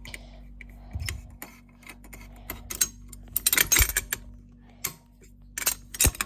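Handling noise from fire alarm hardware: scattered clicks and knocks, with a burst of metallic rattling and jangling about three and a half seconds in and a sharp knock near the end, over a faint steady hum.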